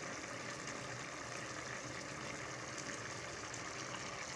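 Rice, peas and stock for matar pulao boiling in an open pot, a steady bubbling and fine crackle: the stock is being boiled down until the rice is nearly dry, before it goes on dum.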